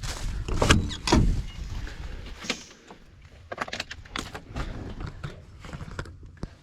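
A string of knocks, clicks and rattles from someone getting into a truck cab, handling the door and keys. The loudest knocks come in the first second or so, with smaller clicks and rattles after.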